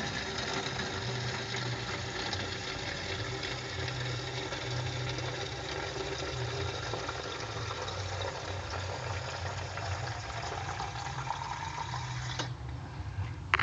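Water running from a solenoid valve into a plastic bottle, with a tone that rises in pitch as the bottle fills. The flow cuts off suddenly near the end, followed by a sharp click. A low pulsing hum runs underneath.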